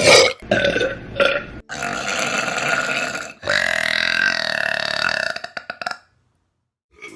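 Women burping one after another: a few short burps, then two long drawn-out burps. The last of these stops abruptly about six seconds in.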